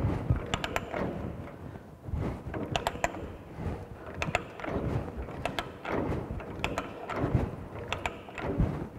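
Ratcheting hand die stock cutting threads on a 1-inch metal pipe held in a pipe vise. The handle is worked back and forth in repeated strokes, about one a second, with sharp ratchet clicks and the scrape of the die biting into the pipe.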